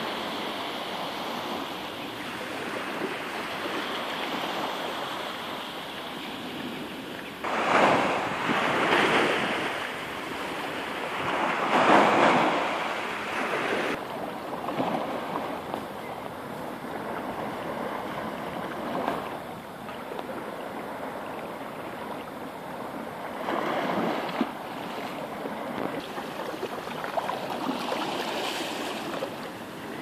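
Small sea waves washing in and breaking on a sandy beach: a steady wash with louder surges as each wave breaks, the biggest about 8 and 12 seconds in.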